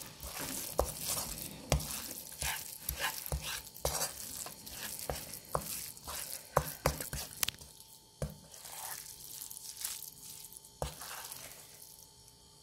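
Rice stir-frying in spicy red sauce in a nonstick frying pan: a steady sizzle, with a wooden spatula stirring and scraping and giving sharp irregular taps against the pan. The sizzle and taps die away near the end.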